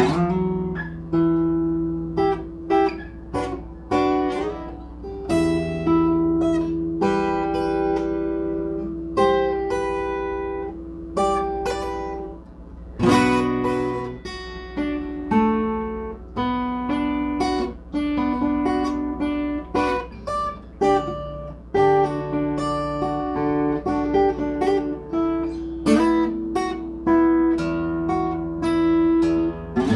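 Acoustic guitar being played: picked notes and strummed chords ringing out one after another.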